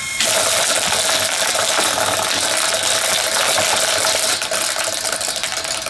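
Vintage Windmere 12-inch table fan running with its spinning blades striking the caved-in front grille: a loud, fast clattering rattle that dies down over the last second or two.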